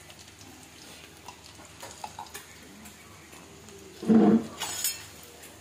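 Chopped garlic and cumin seeds frying in hot oil in a deep metal pan, a quiet steady sizzle. About four seconds in comes a brief loud pitched sound, followed by a sharp metallic scrape.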